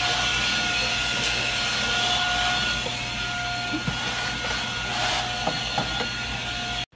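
Corded vacuum cleaner running steadily on a wooden floor, its motor giving a constant rush with a faint whine; it cuts off suddenly near the end.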